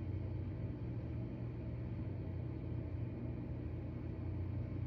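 Steady low hum with a faint rumble.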